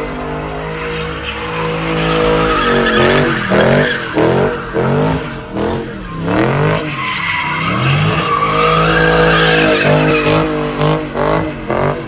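A car doing burnouts and donuts: its engine revs rise and fall over and over, with stretches held high, over a continuous squeal and skid from the spinning rear tyres.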